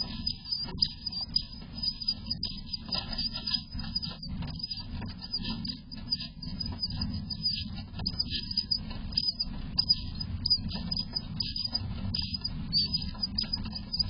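Eastern bluebird nest box: the adult shuffling on the grass nest while feeding the nestlings, a busy run of scratches, rustles and short high chirping notes over a steady low rumble.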